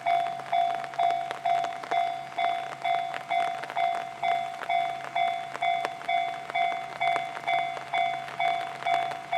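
Japanese railway level-crossing warning bell ringing, a pitched electronic ding repeating about twice a second, each strike sharp and quickly fading.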